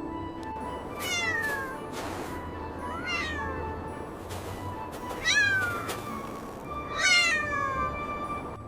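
Four high-pitched kitten meows, each falling in pitch, about two seconds apart, over soft background music.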